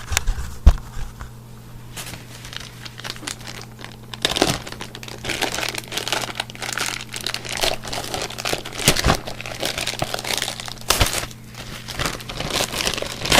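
Packaging crinkling and rustling as it is handled and pulled open, in irregular crackles throughout. There is a sharp knock just under a second in, over a faint steady low hum.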